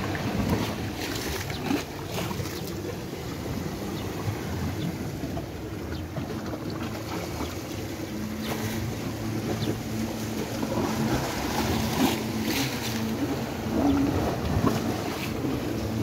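Wind buffeting the microphone over the wash of calm sea water against a rocky shore, with a faint low steady hum from about halfway through.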